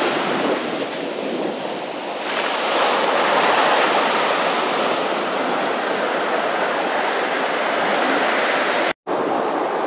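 Ocean surf breaking and washing up a sandy beach, a steady rushing of water that swells a little about two seconds in. The sound drops out for an instant near the end.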